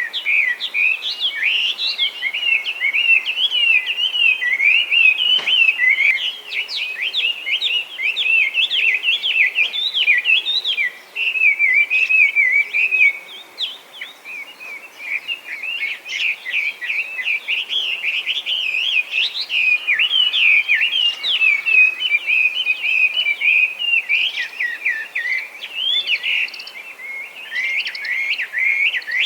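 Chinese hwamei singing a loud, nonstop song of rapid, varied whistled phrases that sweep up and down, with short breaks about eleven and fourteen seconds in.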